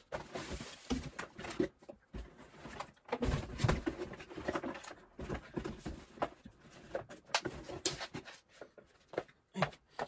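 Rummaging and handling of objects: irregular knocks, clicks and rustling, with a few heavier thuds about three seconds in.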